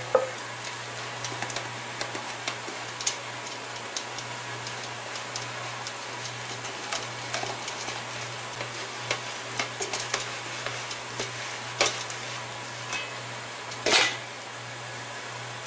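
Rice flour being rubbed by hand through a stainless-steel mesh sieve: soft scraping with scattered light clicks and taps of the metal sieve, over a steady low hum. A sharper metal knock comes about fourteen seconds in.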